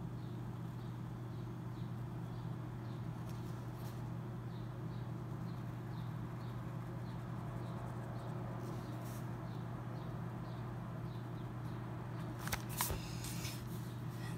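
A steady low hum, with faint light ticks about twice a second and a few sharp clicks about twelve to thirteen seconds in.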